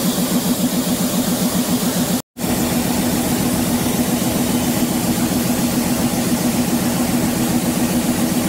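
An engine running steadily, a low hum with a fast throb. It cuts out completely for an instant about two seconds in, then carries on the same.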